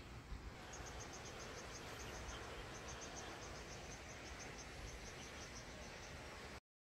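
Faint insect chirping: a rapid run of short high-pitched pulses, about six a second, with a brief pause about two seconds in, over a low steady outdoor hiss. The sound cuts off abruptly near the end.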